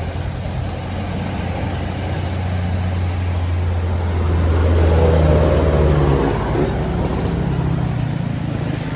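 A bus engine labouring uphill in a low, steady drone over a steady road hiss. It grows louder as the bus passes about five seconds in, and its pitch shifts soon after.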